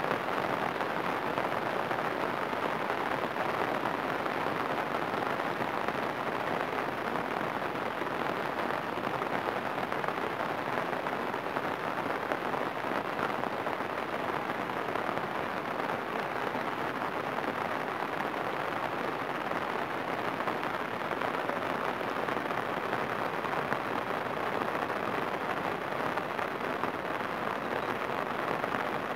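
Heavy rain falling steadily on floodwater, an even hiss with no breaks.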